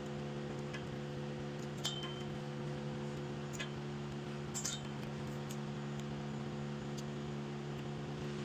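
Steady machine hum of several fixed low tones, with a few light metallic clinks, about three of them, in the middle.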